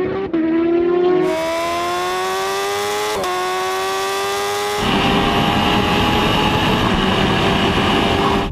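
High-revving engine accelerating hard, its pitch climbing steadily, with quick gear shifts just after the start and about three seconds in. From about five seconds a loud rush of wind at speed covers a steadier engine note.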